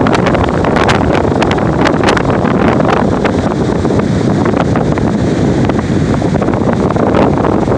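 Strong wind buffeting the microphone: a loud, continuous rumble with frequent crackles, over rough surf breaking on the beach.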